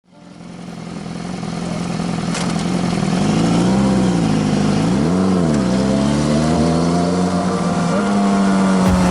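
Sport motorcycle engine running at steady revs on the move, fading in over the first few seconds; the revs rise and fall briefly twice near the middle.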